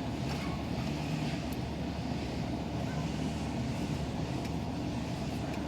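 Steady low background rumble, with a few faint ticks as a spring is fitted into the mower's carburetor linkage.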